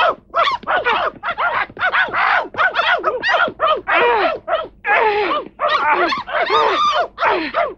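A pack of dogs barking and yapping excitedly, short overlapping barks several a second with no pause.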